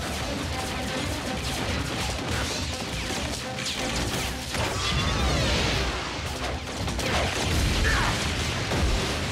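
Cartoon battle sound effects: energy-blaster shots, sweeping laser whooshes and crashing explosions, over background music.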